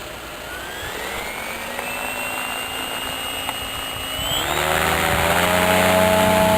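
Electric RC helicopter spooling up: the brushless motor and gear whine rises in pitch and levels off, then climbs again about four seconds in, and the rotor sound comes up loud and steady as the head reaches flying speed.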